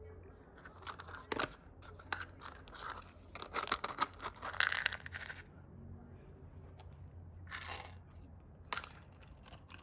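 Senior dog eating: an irregular run of short crunches and clicks over the first five seconds or so, then a brief rustle and a single click near the end.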